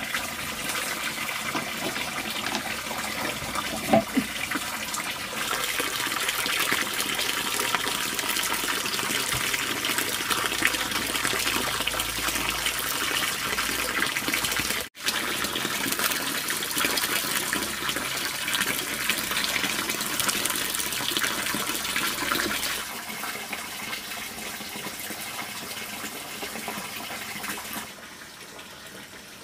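Steady running and splashing water. It cuts out briefly about halfway and gets quieter towards the end.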